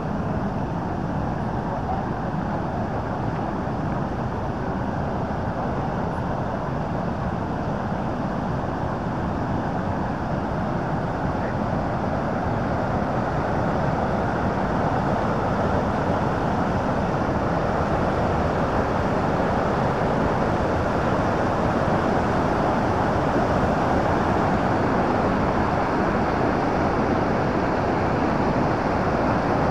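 Rushing water of the Bow River's falls and rapids: a steady, even rush that grows a little louder about halfway through.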